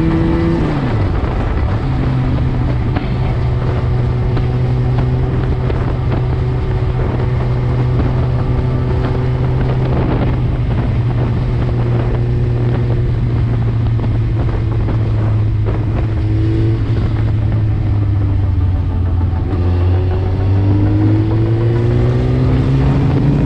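Suzuki GSX-R1000 inline-four with an Akrapovic full exhaust, riding along with wind rushing over the microphone. The engine note drops quickly as the throttle closes about half a second in, holds steady at cruising revs, sags around twenty seconds in, then climbs again as the bike accelerates near the end.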